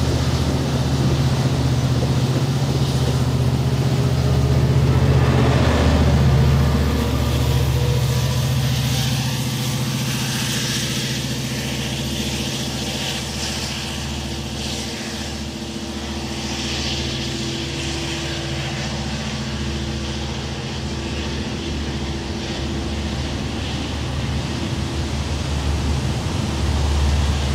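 Diesel train engine running with a steady low hum, swelling a little about five seconds in and then easing.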